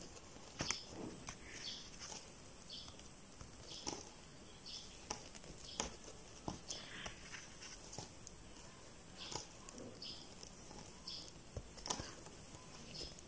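Faint, irregular clicks and rustles of a crochet hook and yarn as single crochet stitches are worked through plastic canvas.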